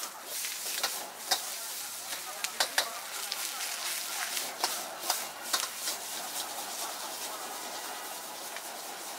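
Metal ladle scraping and clanking against a wok as egg noodles are stir-fried over a high gas flame, over a steady sizzle of frying. The clanks come in quick bunches and mostly stop after about six seconds, leaving the sizzle.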